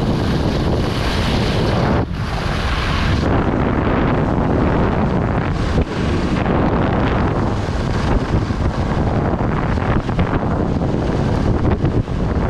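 Heavy wind buffeting the camera microphone while skiing fast downhill, with the hiss of skis sliding and carving over groomed snow.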